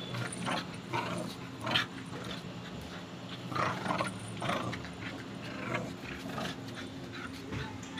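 Pitbull puppy growling aggressively over a belt held out to it, with a few louder, sharper bursts.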